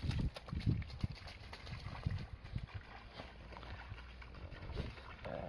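Running footsteps in rubber boots splashing through puddles on a wet track: heavy close thuds in the first second, then fainter, uneven steps.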